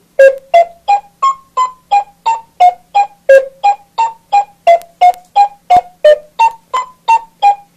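Electronic toy tune of short, plinky synthesizer notes, about three a second, stepping up and down in pitch, played by a LeapFrog phonics writing desk while it shows how a letter is written.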